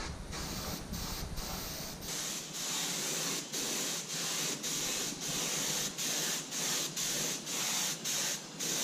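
Compressed-air gravity-feed spray gun hissing as primer is sprayed onto a boat hull. The hiss is steady for the first two seconds, then comes in short bursts about twice a second.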